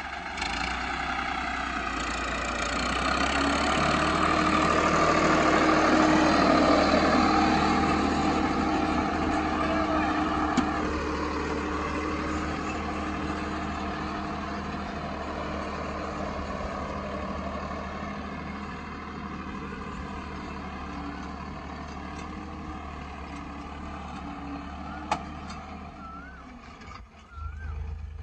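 Farmtrac 60 tractor's diesel engine running steadily while pulling a loaded soil-scraper leveller through a ploughed field. It is loudest a few seconds in and fades slowly as the tractor moves away.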